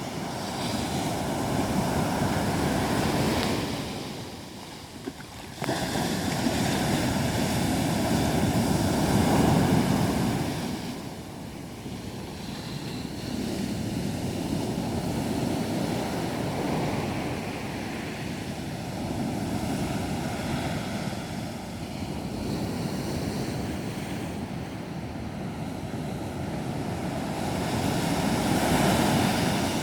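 Sea surf breaking and washing onto a sandy beach, swelling and easing every several seconds, with wind on the microphone.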